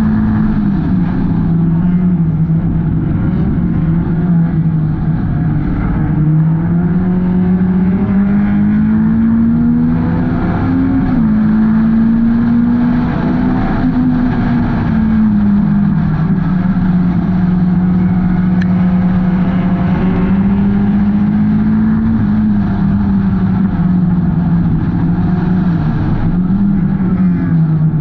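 Four-cylinder Hornets-class race car engine running hard in a race. Its pitch climbs and drops several times as the car accelerates and lifts off, with a longer steady stretch in the second half.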